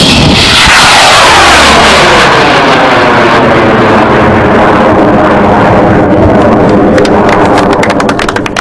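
Hybrid rocket motor igniting suddenly at liftoff and firing loudly as the rocket climbs away, the roar sweeping down in pitch, with rapid crackling near the end.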